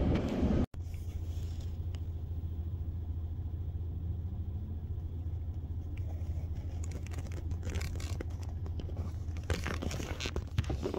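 Vehicle road noise that cuts off abruptly less than a second in, followed by a quieter, steady low rumble with scattered crunching sounds in the last few seconds.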